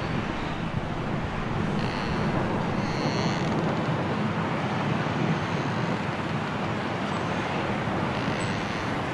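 Strong wind blowing steadily during a snowstorm, a constant even rushing with no break.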